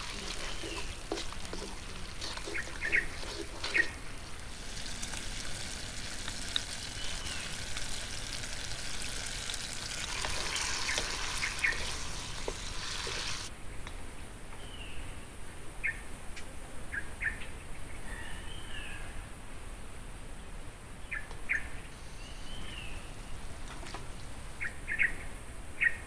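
Chillies and seafood stir-frying in hot oil in a wok: a loud, steady sizzle that cuts off suddenly about halfway through. After it, birds chirp now and then over short clicks.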